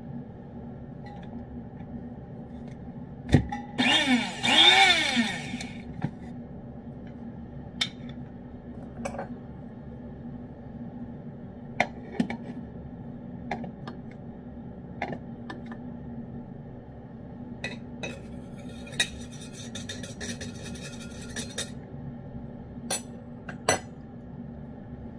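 Pull-tab lid of a metal cat food can popped open with a sharp click, then peeled back with a short screeching scrape. Afterwards scattered light clinks and taps, and a few seconds of scraping about two-thirds through, as food is spooned out of the can into a dish.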